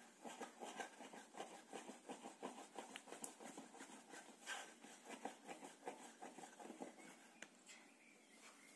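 Faint, quick series of light knocks from a thin wooden rolling pin worked back and forth on a wooden board, rolling out jiaozi dumpling wrappers. The knocks ease off near the end.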